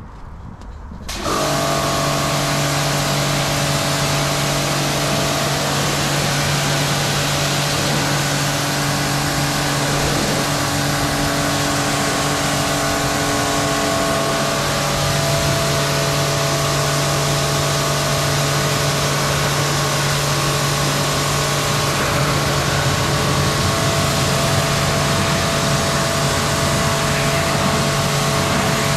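Bormann Pro BPW 5000 electric pressure washer (3200 W, 225 bar) starting about a second in, then running steadily: a constant motor hum under the loud hiss of the high-pressure water jet spraying a car.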